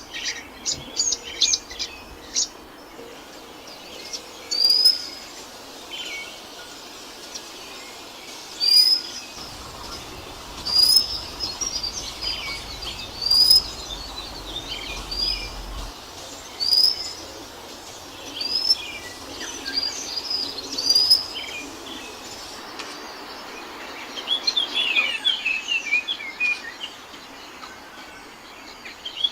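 Wild birds singing: a bird repeats a short rising whistled note every second or two. A quick run of chirps comes at the start, and a fast series of short chirps comes near the end.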